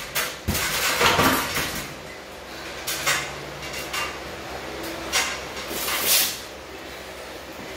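Gloved punches landing on heavy punching bags: a handful of irregular slaps and thuds, roughly a second apart.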